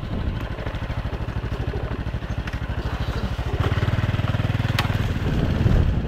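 Small moped engine running at low speed while riding along a rough path, pulsing evenly and growing louder a little past halfway as the throttle opens. A sharp click or knock comes about five seconds in.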